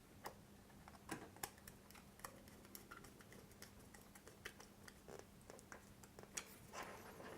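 Faint, scattered light clicks and ticks of cable conductors being handled and pushed into the terminals of a light switch, over near-silent room tone.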